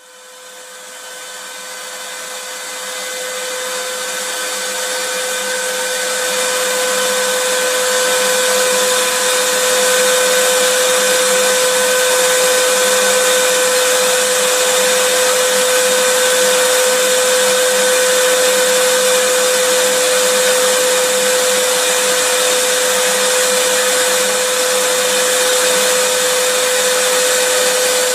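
Vacuum cleaner running steadily: a constant rushing hiss with a steady whine in it. It fades in over the first several seconds and then holds an even level, used as soothing white noise for a baby.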